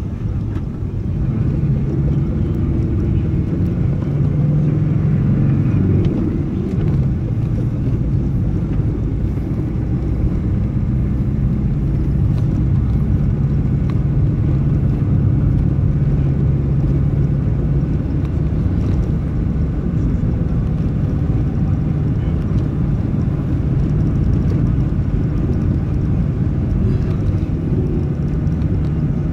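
A motor vehicle's engine running on the move, a steady low hum that shifts a little in pitch with the throttle, over road and wind noise.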